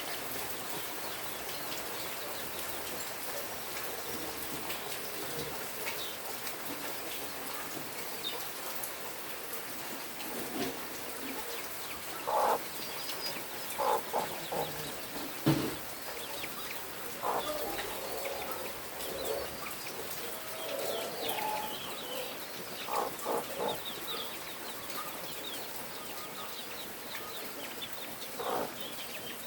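Chickens clucking in short, scattered calls over a steady background hiss, the calls coming mostly in the second half.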